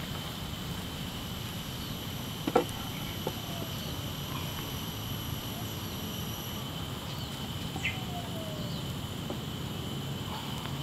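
Steady insect drone of the forest, high and unchanging, with a couple of faint short bird calls. A single sharp knock comes about two and a half seconds in, with a smaller click shortly after.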